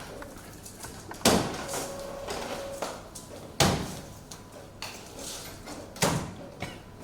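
Three heavy mechanical clunks about two and a half seconds apart, each ringing off briefly, from a lottery draw machine.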